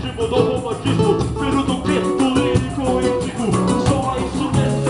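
Samba music: percussion keeping a quick, steady beat under plucked strings and pitched melody lines.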